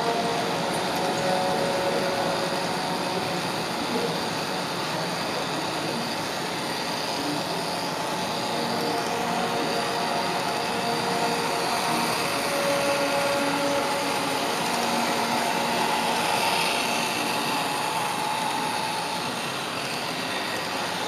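Model electric train running along the layout's track, with a steady whir of its motor and wheels on the rails.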